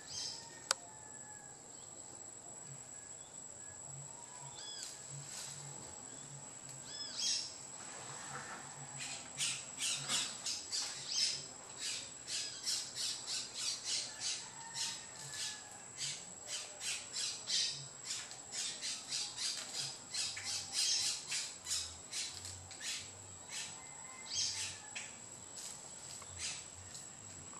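Birds calling: a few short chirps, then from about nine seconds in a rapid run of sharp squawks, about two to three a second, that tails off near the end. A steady high-pitched insect buzz runs underneath.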